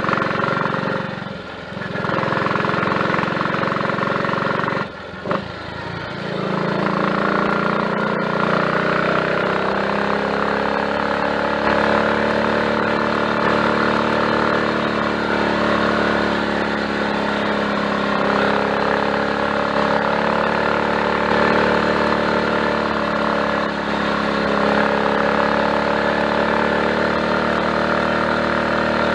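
Triumph Tiger Cub's 199 cc single-cylinder four-stroke engine running on the road, easing off twice in the first few seconds, then pulling up through the revs and running steadily. It runs without misfiring on its new carburettor slide, needle and jets.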